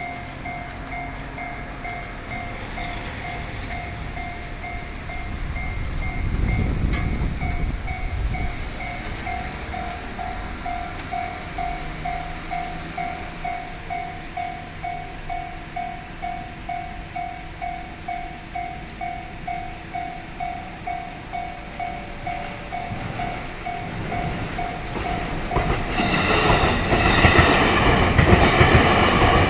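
Japanese level-crossing warning bell ringing in an even, repeating ding-ding. Near the end a JR Chuo Line train comes through the crossing, its wheel and running noise quickly growing loud and drowning the bell.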